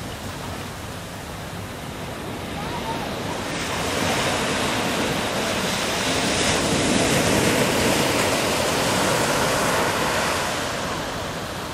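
A rushing noise of wind and sea waves that swells about four seconds in and eases off near the end.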